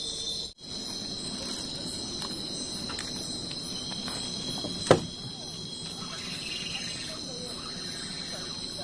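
Steady night chorus of crickets, several high, unbroken trilling tones, with a single sharp click about five seconds in.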